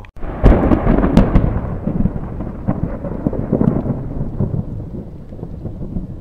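Thunder from a nearby lightning strike: a sudden loud crackling clap about half a second in, then a long rolling rumble that slowly fades.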